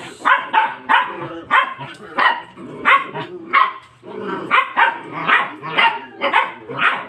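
Dog barking over and over in quick, even succession, about two to three barks a second, with a short pause about four seconds in.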